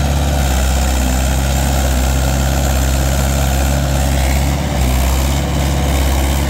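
Mahindra 575 XP Plus tractor's four-cylinder diesel engine working hard under heavy drawbar load, running at a steady pitch with one brief dip a little past the middle. It holds its speed without bogging down, after a service that cured its earlier loss of power under load.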